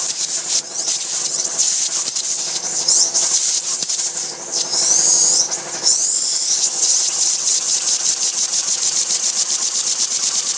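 Homemade model steam engine run on 70 psi compressed air: loud hiss of air escaping from the blow gun and valve, with a fast chuffing beat as the piston cycles, and a whistle that bends up and down in pitch a few times.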